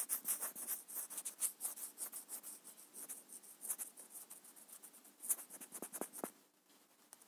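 Quick, scratchy rubbing strokes across a touchscreen, several a second, as handwritten ink is erased; they stop about six seconds in.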